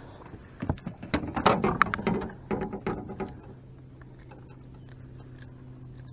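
Irregular clicks and knocks as a freshly caught crappie is swung into the boat and handled on the jig, over about the first three seconds; after that only a faint steady low hum remains.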